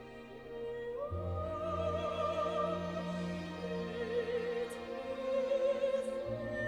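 Operatic music played back through DALI bookshelf speakers: an orchestral accompaniment, with a singer's voice entering about a second in and holding long notes with a wide vibrato.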